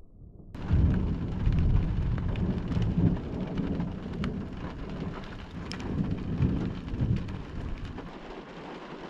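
Thunder from a lightning strike that starts abruptly about half a second in. It rolls loud and deep for several seconds with sharp crackles, then fades, over steady rain.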